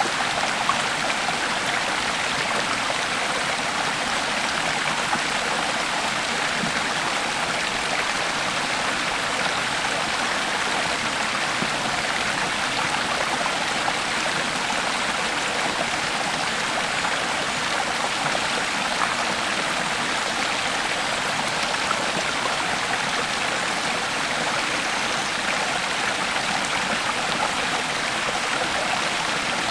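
Creek water flowing and splashing in a steady, unbroken rush.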